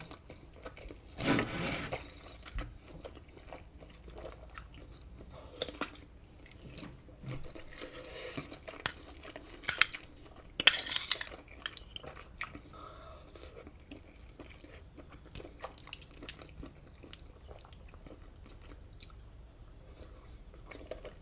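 Close-miked chewing and biting of food, with a few sharp clinks of cutlery on a plate about halfway through.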